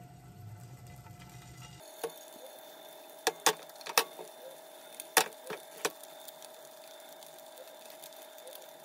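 Chopsticks clicking sharply against a non-stick frying pan, about seven times in bursts between two and six seconds in. Under the clicks is a faint steady whine that starts about two seconds in.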